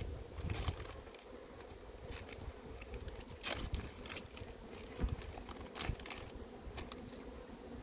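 Honeybees buzzing in a steady hum around the hive, with scattered crinkles and clicks from a plastic packet being handled, loudest about three and a half, five and six seconds in.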